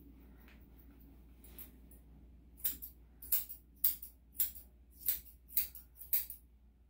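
Grooming scissors snipping dog hair on the muzzle: a faint cut or two, then from about two and a half seconds in a run of about seven sharp snips, roughly two a second.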